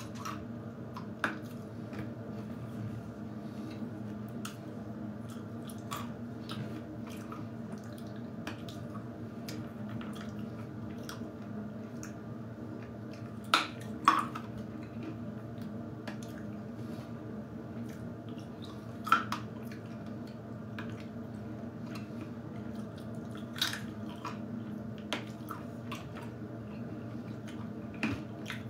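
A person chewing hazelnuts and chocolate, with a handful of sharp wet mouth clicks over a steady low hum.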